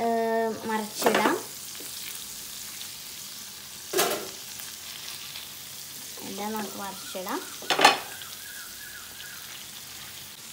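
Masala-coated quail pieces sizzling as they shallow-fry in coconut oil in a frying pan, a steady hiss, with a utensil clinking sharply against the pan three times as the pieces are turned over.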